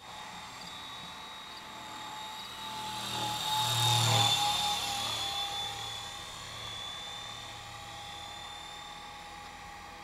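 Helicopter flying past: a steady whine over a low hum, loudest about four seconds in, dipping slightly in pitch as it passes, then carrying on more quietly.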